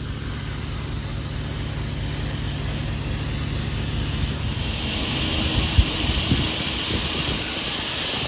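Pressure washer's engine running steadily, then, a little past halfway, a hissing spray of water starts from the wand as soap is applied to the house, with two brief knocks just after.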